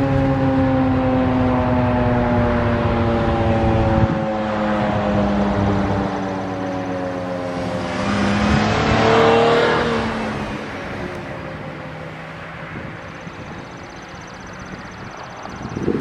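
Federal Signal 2001-SRNB single-tone chopper siren winding down after its Alert signal, its tone falling slowly and fading away as the rotor coasts to a stop. A swell of rushing noise passes about nine seconds in.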